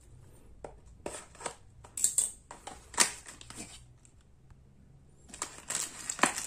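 Cardboard instant-pasta box being opened and handled by hand: a run of sharp clicks and scrapes of the card flaps, loudest about three seconds in, then after a short lull denser rustling near the end.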